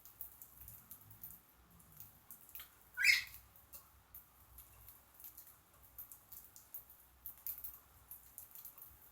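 Pet birds husking millet seed: many faint, quick clicks of seeds being cracked, with one short bird chirp about three seconds in.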